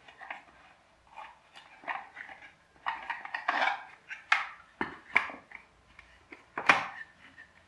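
Small plastic toy tipper truck handled and wound up by hand: irregular clicking and clattering of its plastic wheels and axle as the rubber band is twisted, with a few louder knocks.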